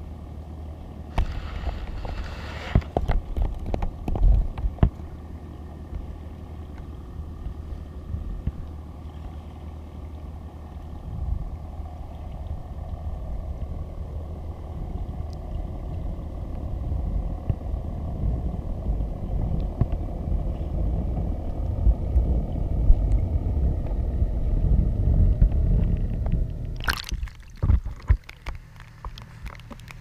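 Muffled low rumble with scattered knocks, heard through an action camera's waterproof housing underwater, growing louder over the second half. About 27 seconds in, a short loud burst of noise as the camera comes out of the water, then quieter open-air sound.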